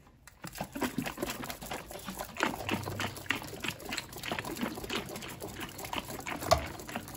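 Milk sloshing inside a capped jar being shaken by hand to mix in kefir culture, in quick irregular splashes after a brief silent start.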